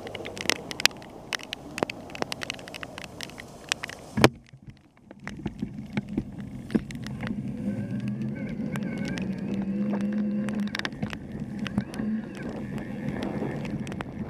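Raindrops tapping on a bike-mounted camera in many irregular clicks, cut by a sharp knock about four seconds in. After a brief gap, the steady hiss of bicycle tyres on a wet road, with a car engine humming alongside and raindrops still ticking on the camera.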